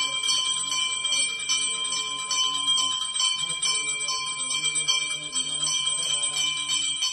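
Temple bells ringing continuously during aarti lamp worship: fast, dense strikes over a steady high ring, with a lower tone underneath.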